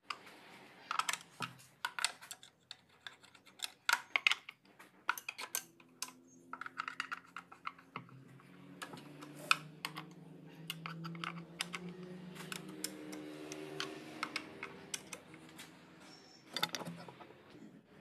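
Socket wrench with a long extension clicking and tapping irregularly as it works the bolts of a Renault Kwid's plastic oil sump. A faint steady hum sits underneath through the middle.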